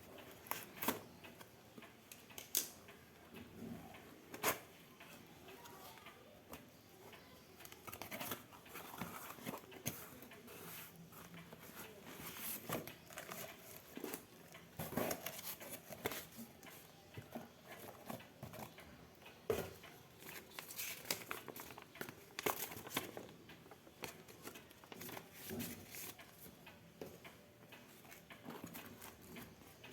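Packaging being handled and opened by hand: irregular crinkling and rustling of plastic and cardboard, with scattered sharp clicks and taps.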